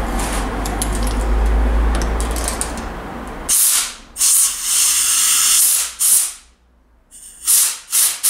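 A small air compressor runs with a steady hum and stops about three and a half seconds in. An air blow gun then gives several short hissing blasts of compressed air, with a brief pause near the end, blowing out a motorcycle carburettor bank to clean it.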